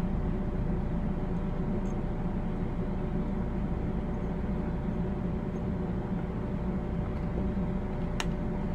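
Steady mechanical hum in the room with a few constant tones, and one short faint click about eight seconds in.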